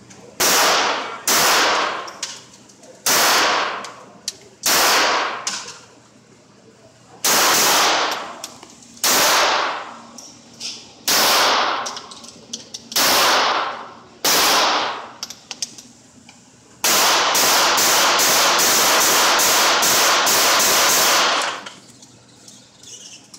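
.22 LR Smith & Wesson M&P 22 Compact pistol firing in an indoor range: about nine single shots one to two seconds apart, then a fast string of a dozen or more shots, about three a second. Each shot is a sharp crack that echoes off the range walls.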